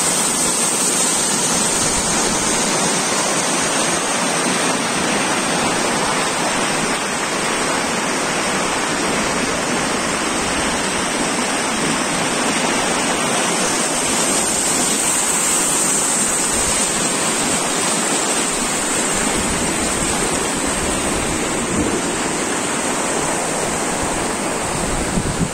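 River water rushing over rocks in white-water rapids: a steady, unbroken rush.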